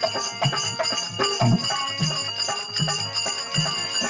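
Instrumental break in a Rajasthani folk song: a steady drum beat of about two strokes a second under sustained instrumental tones, with no singing.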